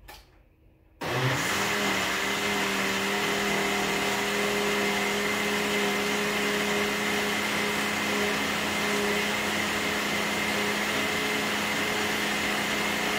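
Countertop blender switched on about a second in, its motor then running at a steady speed as it blends a thick mix of cooked pumpkin, okra, peanuts and oats.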